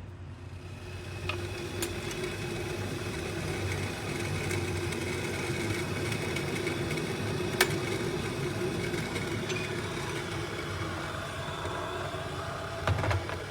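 Electric gooseneck kettle heating water: a steady rumbling hiss that builds over the first few seconds and then holds, with a few faint clicks.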